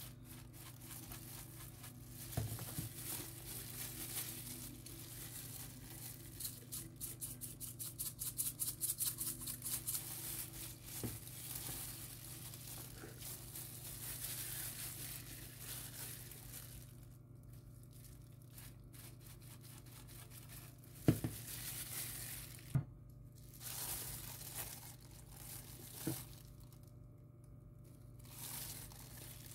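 Plastic bag worn over a hand crinkling as it rubs seasoning into a raw whole chicken, with a quick run of rubbing strokes at about four a second, then a few sharp knocks later on, over a steady low hum.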